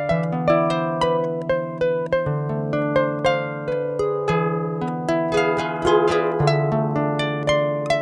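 Harp playing the instrumental introduction to a song in D minor: a steady run of plucked notes, several a second, each ringing on over a low bass note that shifts about every two seconds.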